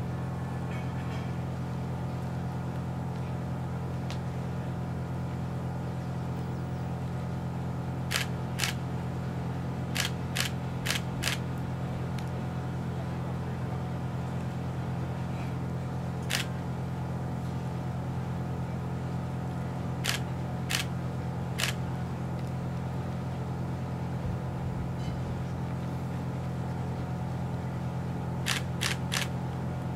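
A steady, low mechanical hum, constant in pitch, with about a dozen sharp clicks in small clusters of two to four.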